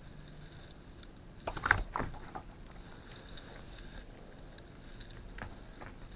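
Welsh corgi snapping up and chewing a homemade gummy treat: a quick burst of clicks and snaps about a second and a half in, then a few fainter mouth clicks.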